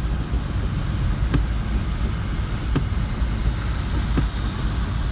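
Inside a car driving through heavy rain: a steady low engine and road rumble with the hiss of rain, and the windshield wiper giving a short knock at each sweep, about every second and a half.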